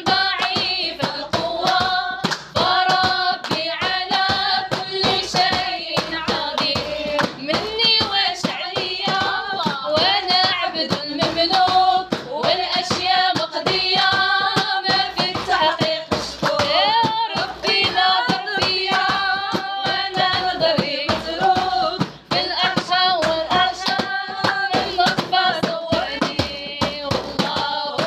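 Voices singing a devotional song, with rhythmic hand clapping throughout.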